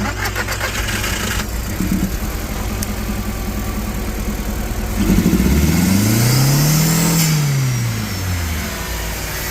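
Audi TT mk1 1.8T turbocharged four-cylinder engine running just after starting on a freshly wired 2.0T-style coil pack conversion. It idles, then about halfway through is revved once, rising and falling back to idle.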